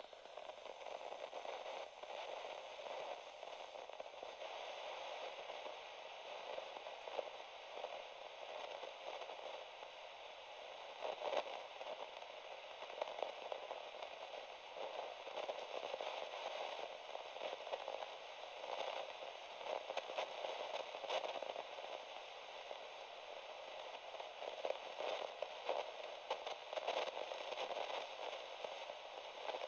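Low-level crackling static: a steady hiss peppered with many small irregular clicks, with no music or speech.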